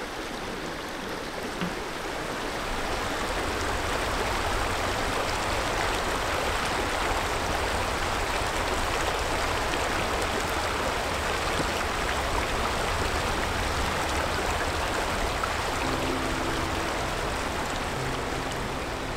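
Shallow mountain river running over a bed of rounded stones: a steady rush of water that grows a little louder about three seconds in.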